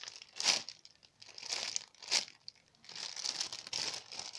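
Plastic packaging crinkling as a squishy toy is handled, in irregular rustles with two sharper crackles.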